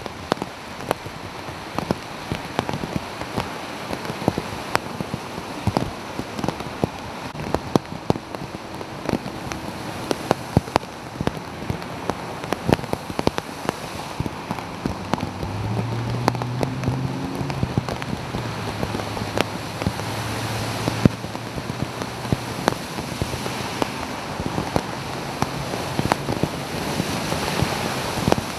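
Steady rain with many sharp drops ticking close by, over the wash of vehicles driving through floodwater on the street. From about halfway the wash grows louder and a low engine hum from passing vehicles joins in.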